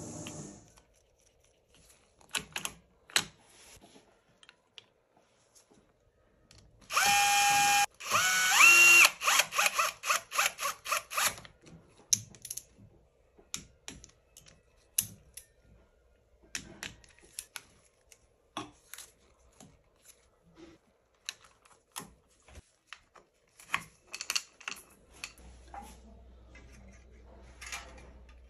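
A small power driver runs in two short spurts about seven seconds in, the second rising in pitch as it spins up. Around it, metal timing-chain parts and hand tools clink and click sharply as they are fitted to a BMW N47 diesel engine block.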